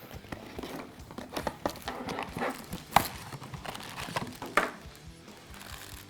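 Crinkling, rustling and clicking of small cardboard blind boxes and foil packaging being handled and torn open, with a few sharp clicks, the loudest about three seconds in.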